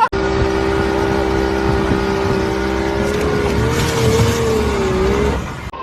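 Motorboat engine running at a steady pitch, which wavers slightly up and down about three seconds in, over a low rumble.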